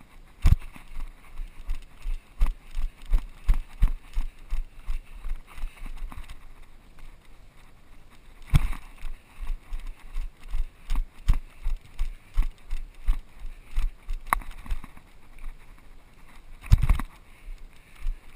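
Running footsteps on a dirt course, heard as thuds through a body-worn action camera, about two and a half a second, pausing twice. A few sharper knocks stand out among them.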